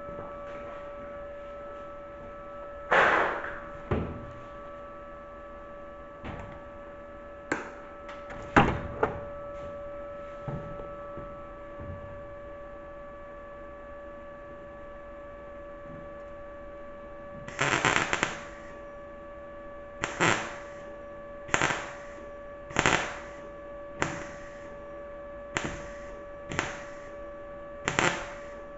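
MIG welder laying short tack welds on sheet metal: a series of brief arc bursts, each a second or less, with a longer one about halfway through. In the second half they come regularly, about one every 1.3 seconds. A steady electrical hum runs underneath.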